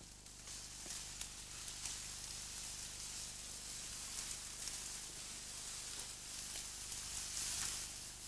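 Tall grass rustling and swishing against bodies and legs as people push through it on foot, swelling louder near the end, with a few light ticks and snaps.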